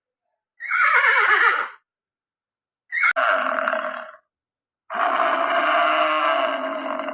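Horse whinnying, with a shaky call falling in pitch about a second in, followed by two longer animal calls.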